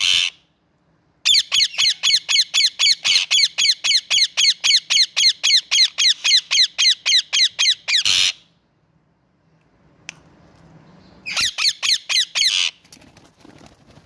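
Indian ringneck parakeets screeching: a fast run of harsh repeated calls, about four a second for some seven seconds, then a shorter burst of the same calls after a pause.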